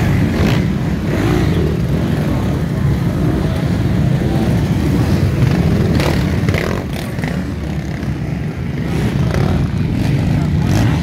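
Several off-road motorcycles riding past at close range one after another, their engines running and revving.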